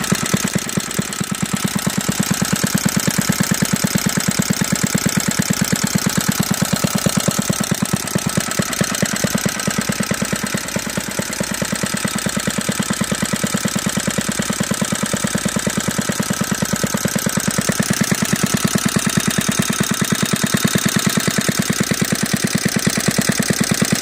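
Briggs & Stratton model WMB half-horsepower L-head single-cylinder washing-machine engine running steadily at low speed, its firing an even, regular beat. It is not turning many RPMs.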